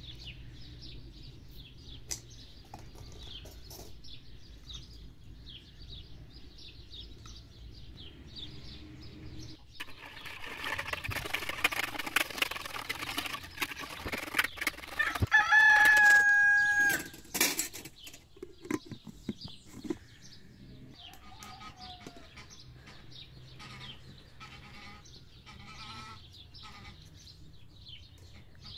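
Wire whisk beating a pizza dough mixture in a plastic bowl, a dense scratchy stretch of several seconds mid-way. Near the end of the whisking a rooster crows once, the loudest sound, and hens cluck afterwards.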